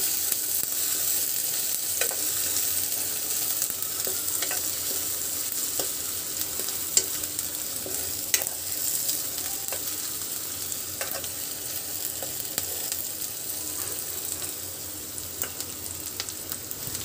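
Chopped onion sizzling in hot oil in a kadhai as a steel spoon stirs it, with scattered clicks and scrapes of the spoon against the pan. The sizzle grows gradually quieter.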